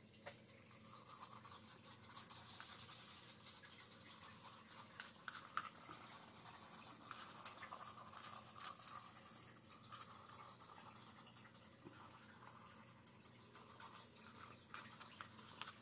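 Faint, uneven scraping of a stir stick against the inside of a small paper cup, mixing a little thick black resin, with scattered small clicks.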